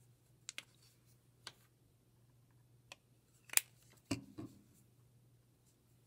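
Scattered light clicks and taps of painting supplies being handled on a tabletop, the loudest a sharp click about three and a half seconds in, followed by two duller knocks, over a faint steady hum.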